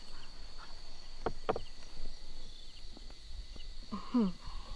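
Insects droning steadily at a high pitch, with two sharp knocks a little over a second in and a brief falling voice-like sound near the end.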